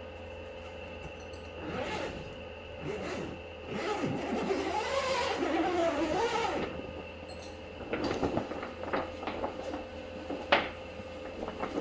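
Rustling and handling noise that swells for a few seconds, with a wavering scrape in the middle. Scattered clicks follow, one sharp click near the end, over a steady background hum.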